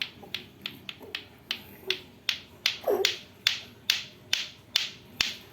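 Lato-lato clacker toy, two hard plastic balls on strings knocking together in a steady run of sharp clacks, about two to three a second. A kitten gives a short mew about three seconds in.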